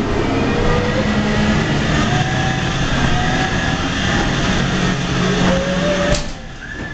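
Ghost train car rumbling steadily along its track, with thin squealing tones over the rumble. About six seconds in there is a sharp bang as the car pushes through the doors, and the rumble turns quieter.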